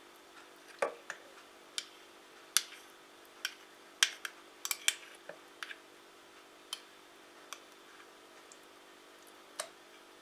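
Metal teaspoon tapping and scraping against the metal blade head of a Redmond immersion blender, clearing off thick prune purée: about fifteen sharp, irregular clicks, bunched most closely in the middle.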